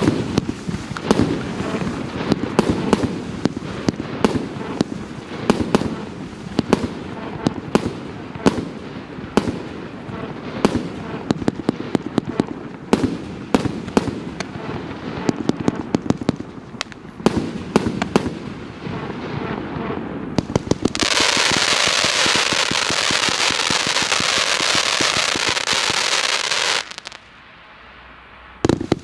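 Multi-calibre consumer fireworks cake (a 166-shot battery) firing in rapid volleys of sharp shots. About three-quarters through, it turns into a loud, dense, continuous hiss for about six seconds that cuts off suddenly, and after a short lull the shots start again.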